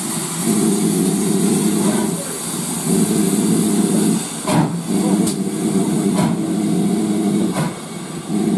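Steam locomotive's cylinder drain cocks hissing steadily as the train moves slowly, with a low rumble that swells and drops, and a few sharp knocks in the second half.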